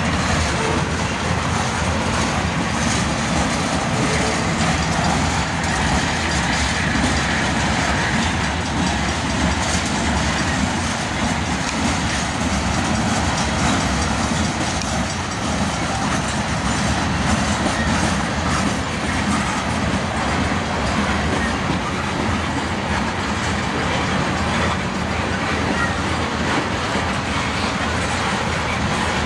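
Manifest freight train cars (boxcars, tank cars, autoracks) rolling past: a steady rumble and clatter of steel wheels on the rails, with many sharp clicks throughout.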